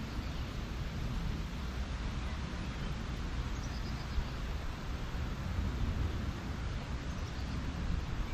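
Wind rumbling on the microphone as outdoor ambience, with a few faint high chirps from birds.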